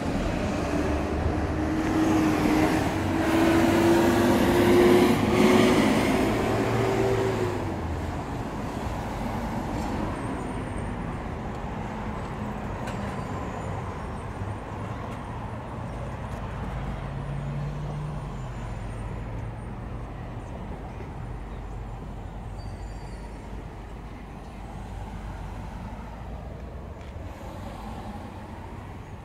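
Road traffic passing on a city street. An engine note climbs steadily for the first seven seconds, loudest around four to six seconds in, and breaks off about seven seconds in, when a BMW F80 M3's twin-turbo straight-six accelerates hard from the far lane. After that the traffic settles into a quieter, steady hum.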